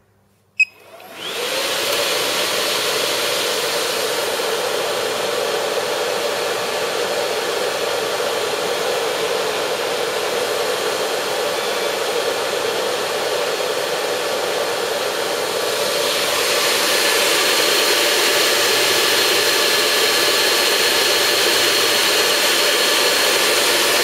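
Cooling fans of a Chenbro RM519 rack server with a quad-processor Tyan S8812 board being started up. A click about half a second in, then the fans spin up within a second to a loud, steady rush with a whine, which steps up louder again about two-thirds of the way through. The noise is the price of keeping the four processors cool.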